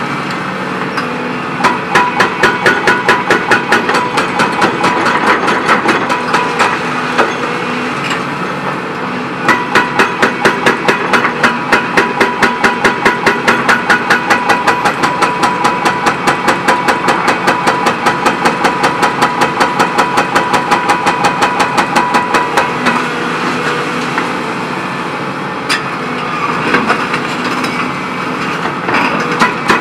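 Dehaco IBEX 7500HS hydraulic hammer on a Volvo EC 700C excavator breaking foundations, striking several blows a second in long runs that stop and restart a few times. The excavator's diesel engine runs steadily underneath.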